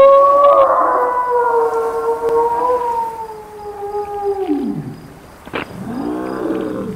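A long, drawn-out howl that holds one pitch for several seconds, then slides steeply down about four and a half seconds in. A shorter howl that rises and falls follows near the end.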